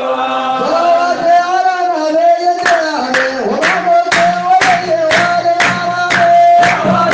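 Voices chanting an Arabic Sufi devotional qasida of blessings on the Prophet, holding a long drawn-out melody. About three seconds in a steady percussive beat joins, about two strokes a second.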